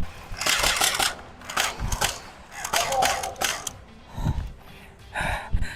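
Irregular mechanical clicks and rattles from a battery-powered skirmish blaster whose battery is running low.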